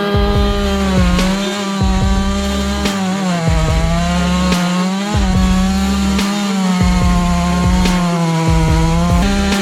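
Two-stroke chainsaw running at high revs and cutting through wood. Its pitch sags slightly a few times as the chain takes load, then picks back up.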